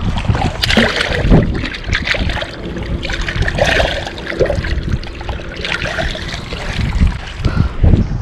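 Wind buffeting the microphone over splashing water, with scattered clicks and knocks of handling.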